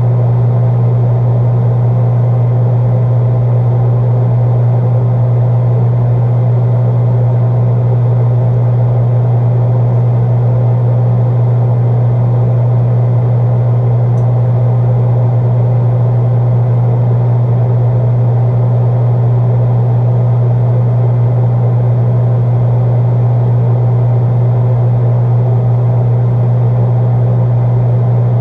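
Gas furnace starting back up, running with a loud, steady hum.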